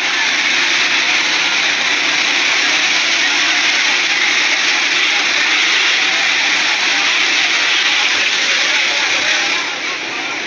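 Steady, loud rushing noise of firefighting gear at work, water jetting from hoses with pumps running, heard through a phone's microphone. It eases a little near the end.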